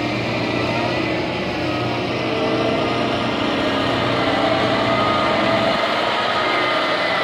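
Engine of a self-propelled Sea-Lift hydraulic boat hauler running steadily as it drives while carrying a 28-ton schooner, growing louder as it comes closer.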